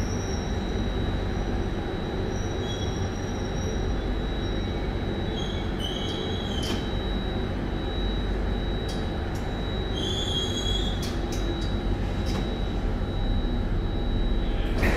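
SMRT C830 Circle Line metro train running with a steady rumble and a steady high whine, its wheels giving short high squeals a few times.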